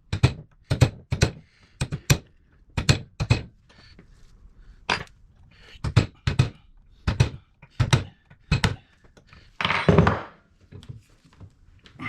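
Hammer blows on a punch or chisel, knocking back the staked tabs of a lock plate on a Porsche 911 steering rack to free its bolts. The blows are sharp metal strikes, about fifteen in all and often in pairs, with a longer, noisier sound about ten seconds in.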